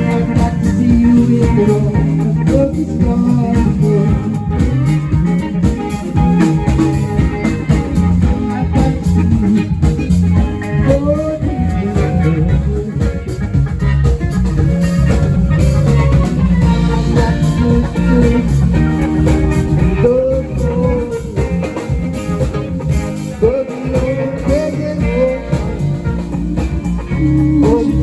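Live band of drums, bass, keyboards and two guitars playing a song, with a lead guitar bending notes over the rhythm section.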